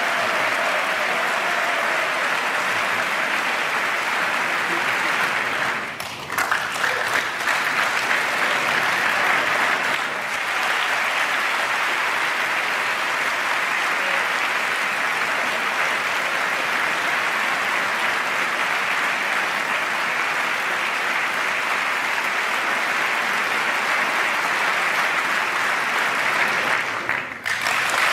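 Sustained applause from a large standing crowd of members of Congress. It drops briefly about six seconds in and again shortly before the end.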